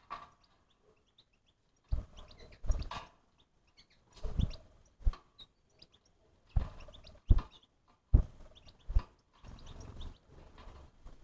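Irregular thumps and knocks, about one every second, some in quick pairs, with animal sounds among them.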